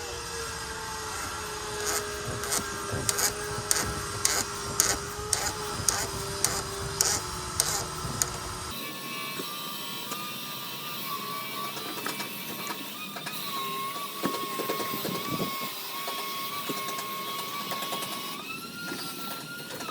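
Ratchet wrench clicking, about two clicks a second, as the oil filter housing cap on a BMW E90 is screwed back down, over a steady faint hum. The sound changes abruptly about two-thirds of the way in.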